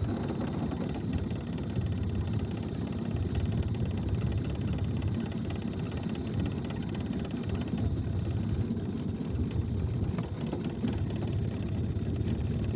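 Small Mercury tiller outboard motor running steadily at low trolling speed, a continuous low hum.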